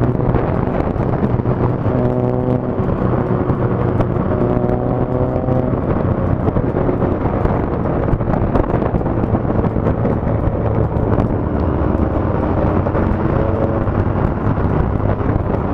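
Motorcycle engine running at road speed under heavy wind rush on the riding camera's microphone. The engine note rises and falls a few times with the throttle.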